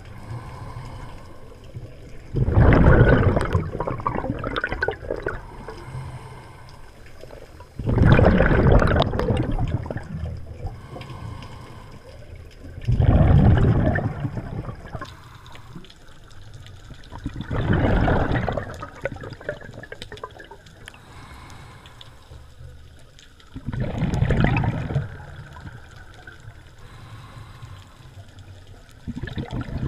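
Scuba regulator breathing underwater: a gush of exhaled bubbles about every five seconds, six times, with a quieter hiss between breaths.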